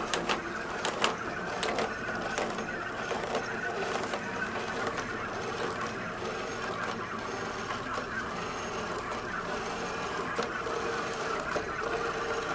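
iRobot Create robot's geared wheel-drive motors whirring steadily as it drives, with scattered sharp clicks, most of them in the first couple of seconds.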